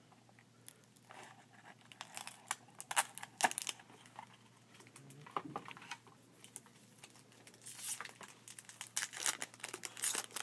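Foil wrapper of a hockey trading card pack being torn open and crinkled by hand, in irregular crackling bursts that bunch together a couple of seconds in and again near the end.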